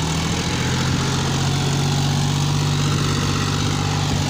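John Deere 5042D tractor's three-cylinder diesel engine running steadily while pulling a rotavator through dry soil, with an even, unchanging pitch.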